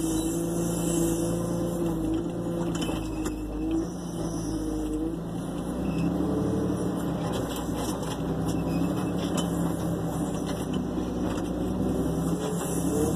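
Engine of the tractor pulling a bale wagon, running steadily as it drives across the field, its pitch rising and falling slightly.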